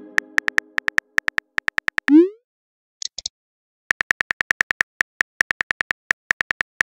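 Texting app keyboard sounds: rapid, even clicks of letters being typed, about seven a second. About two seconds in comes a short rising swoosh as a message is sent, then typing clicks resume near the middle.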